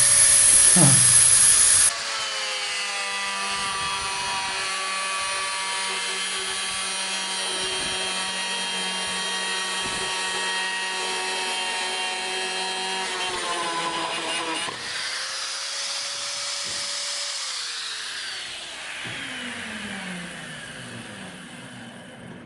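Angle grinder cutting a plastic bucket: a loud rasping hiss for about two seconds, then the grinder running with a steady whine. Near the end its pitch falls as the disc winds down.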